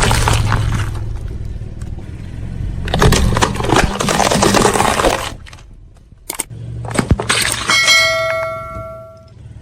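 A car tyre rolling over and crushing brittle objects: two long crunching spells over a low engine rumble, then a few sharp cracks and a brief ringing of several clear tones near the end.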